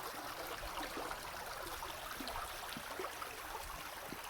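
Shallow creek water running steadily over rocks, a continuous babble dotted with small clicks and ticks.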